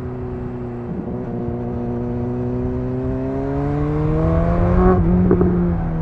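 BMW S 1000 XR's inline-four engine through a Cobra slip-on exhaust, climbing steadily in pitch under acceleration from about a second in. About five seconds in the note breaks briefly and drops to a lower steady pitch: an upshift.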